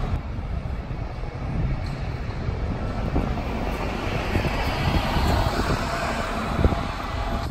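City bus driving past close by and pulling away: its engine and tyre noise swell about four seconds in, peak, and fade, over a steady low rumble of street traffic.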